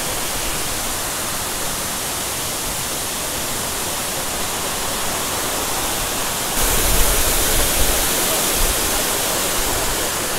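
Waterfall pouring: a steady, dense rush of falling water. About two-thirds of the way through it gets louder and rougher, with a deeper rumble.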